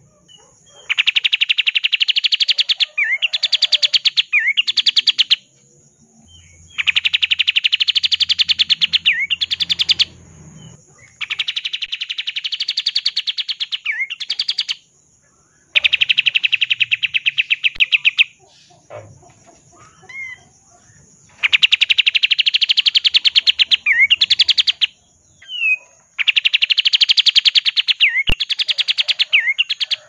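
Olive-winged bulbul (kapas tembak) singing its rapid rattling trill, the full 'ngebren' song, in six bursts of a few seconds each with short pauses between.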